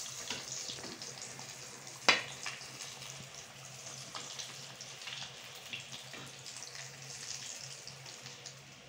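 Puff pastry patties deep-frying in hot oil: a steady sizzle with scattered crackles. About two seconds in, a single sharp knock stands out.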